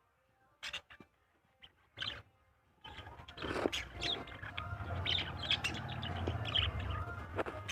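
Small birds chirping: a few short, separate chirps, then from about three seconds in a steady run of overlapping chirps from several birds, with a low rumble underneath.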